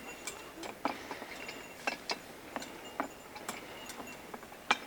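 Irregular sharp clicks and light knocks, about a dozen spread unevenly, one louder near the end.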